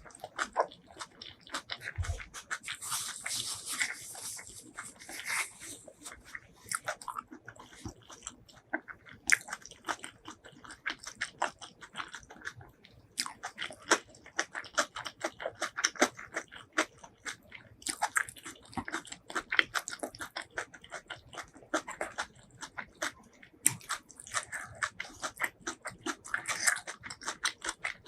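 Close-miked eating: continuous chewing with crisp crunching and many small wet mouth clicks.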